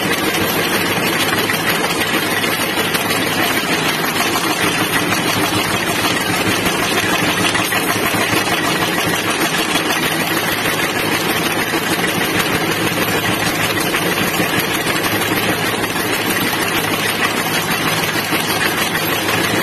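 Washer punching press running steadily: a continuous fast mechanical clatter over a low machine hum.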